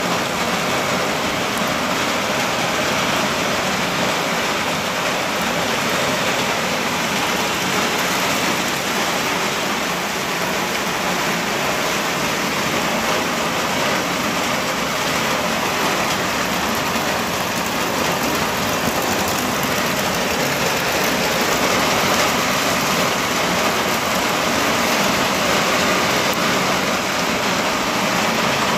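Heavy rain falling steadily on trees, puddles and muddy ground: a dense, even hiss with no let-up.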